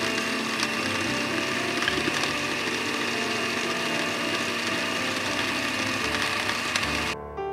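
Small electric blender jar running steadily at speed, its blade grinding fresh coriander, green chilies and garlic into a chutney, with a constant whine over the grinding. The motor cuts off just before the end.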